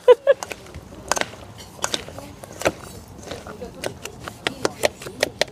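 A string of irregular light clicks and knocks, coming faster toward the end.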